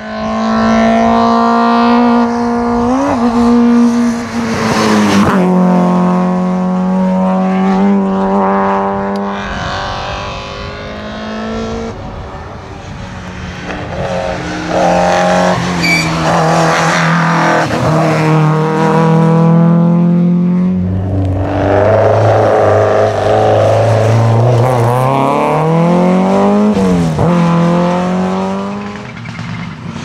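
Peugeot 205 rally car's engine driven hard on a tarmac stage, its note climbing and falling with throttle and gear changes, with a sharp drop about five seconds in and a deep low pull around twenty-one seconds in before it rises again.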